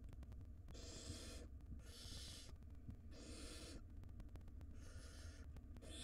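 Barn owl nestlings giving their begging calls: about five harsh, raspy hisses, each well under a second long, coming roughly one a second.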